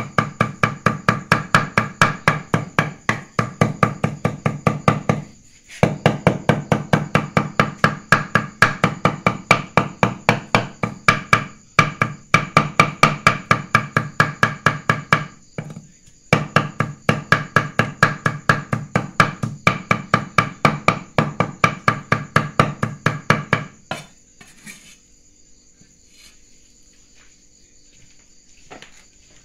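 A cleaver mincing raw buffalo meat on a thick wooden chopping block, in fast, even strokes of about four a second, with a few short breaks. The chopping stops about 24 seconds in, leaving a few soft scrapes and knocks as the meat is gathered.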